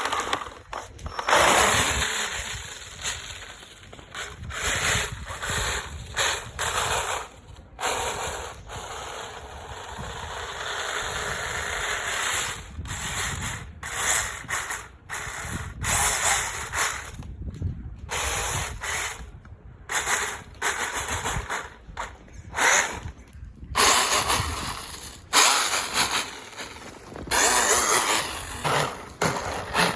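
Electric RC snowmobile's brushless motor and track drivetrain running in repeated bursts of throttle, cutting out briefly several times between runs.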